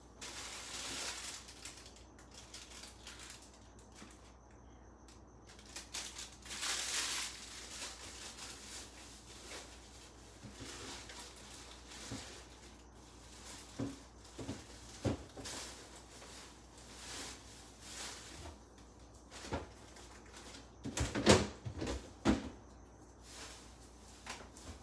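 Rummaging in an open refrigerator: rustling of packages and scattered knocks of containers and shelves being moved, with a cluster of louder knocks about 21 seconds in.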